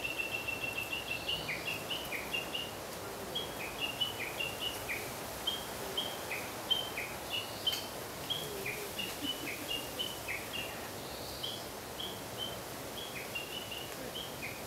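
A small songbird singing a long, rapid run of short high whistled notes, many slurring downward, after opening with a long held whistle, over steady outdoor background noise.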